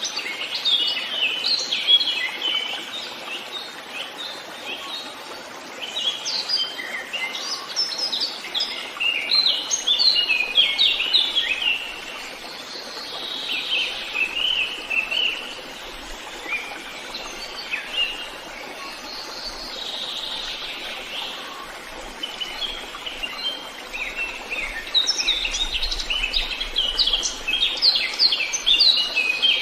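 Songbirds singing in a forest: bursts of rapid, high chirping notes over a soft steady background hiss, busiest at the start and near the end, with a quieter lull in the middle.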